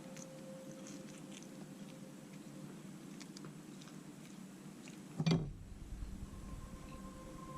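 Faint clicking and crunching of a parrot biting at its food, with one louder bump about five seconds in.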